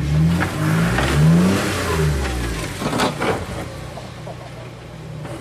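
Jeep Wrangler JK's engine revving in rising and falling surges as it crawls over rocks, then a couple of sharp knocks about three seconds in before the engine settles lower.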